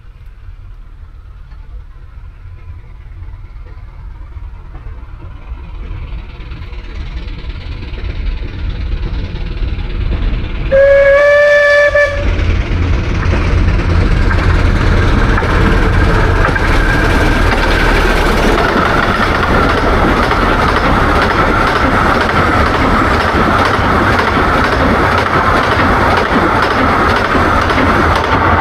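The steam locomotive Spitfire No. 7 approaches, growing steadily louder, and sounds one whistle blast of about a second and a half. It then runs past close by with its train, the carriages rumbling and clattering over the track.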